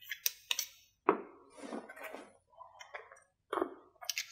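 Small clinks, clicks and short scrapes of an anodized aluminium flashlight (SUNWAYMAN V25C) being handled and its parts turned against each other over a plastic tray, in a string of separate light knocks with the strongest about a second in.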